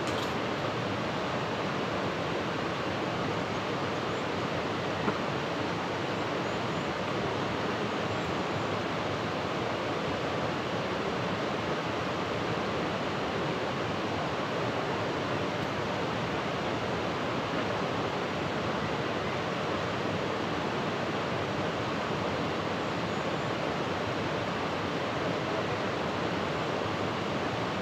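Steady rushing noise of water, even and unbroken, with one brief click about five seconds in.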